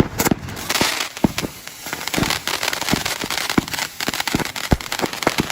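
Four ground firework fountains burning at once: a steady hiss of spray that comes up about a second in, with many sharp crackles and pops scattered through it.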